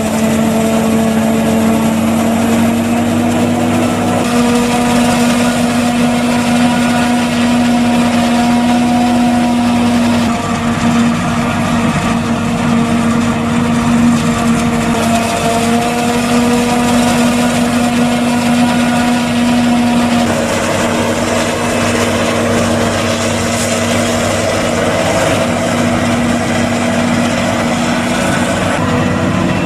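Claas Jaguar 870 self-propelled forage harvester chopping maize, its engine and chopper running steadily under load with a steady hum. The tone shifts slightly a few times.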